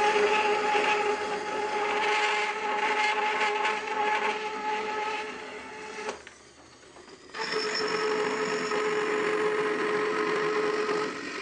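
Wooden bandsaw slowed way down with a steel-cutting blade, running with a steady tone while its teeth rasp super slowly through an aluminium bar. About six seconds in the sound drops away for a moment, then the saw comes back cutting a rusty steel bracket in footage played at four times speed.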